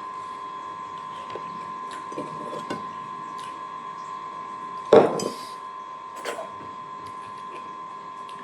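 Cutlery and dishes clinking softly during a meal, with one louder clatter about five seconds in, over a steady high hum.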